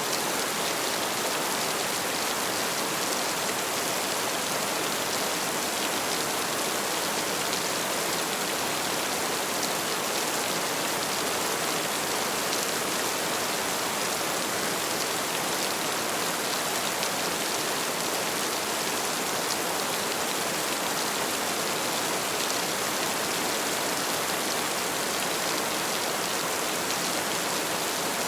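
Heavy rain falling steadily, an even dense hiss of drops that stays constant throughout.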